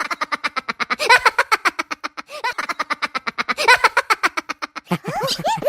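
Rapid, high-pitched cartoon character giggling, about ten quick 'ha' pulses a second in long runs, with a couple of short rising squeaks near the end.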